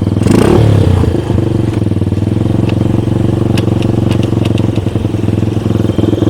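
Homemade snowmobile's engine catching right at the start and revving briefly, then running steadily, with a few light clicks about halfway through.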